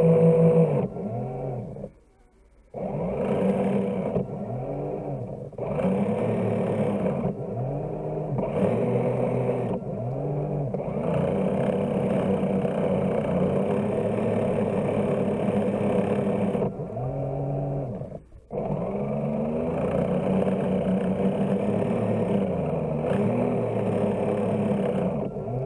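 Motor sound of a radio-controlled model push tug, its pitch rising and falling over and over as the throttle is worked. It cuts out briefly twice, about two seconds in and again near the end.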